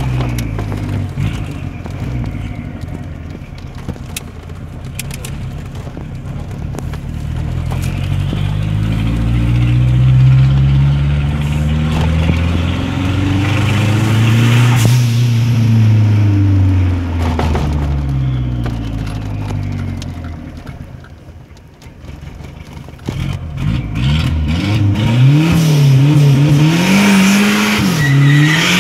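Fiat Tempra Turbo's turbocharged engine heard from inside the cabin while driving. In the middle, its pitch climbs slowly over several seconds and then falls back. After a brief lull, near the end, it rises and drops several times in quick succession.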